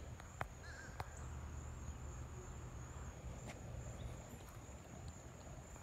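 Quiet outdoor ambience: a steady high-pitched insect drone over a low rumble, with a few faint clicks.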